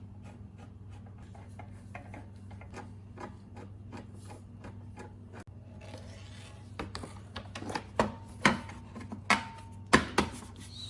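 Hand tools and mower parts being handled during reassembly: a run of small irregular clicks and rubbing, with a handful of louder knocks toward the end, over a steady low hum.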